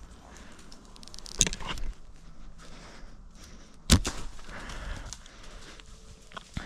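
A bow shot: one sharp, loud snap about four seconds in, with a softer knock a little over a second in, over light rustling.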